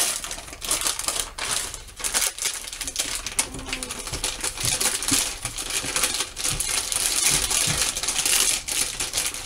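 Plastic packet crinkling and rustling as it is handled, with pieces of candied fruit dropping into a stainless steel mixing bowl.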